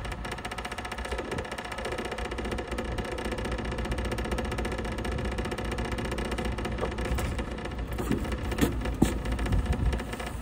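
A diesel engine idling steadily, with a few sharp knocks near the end.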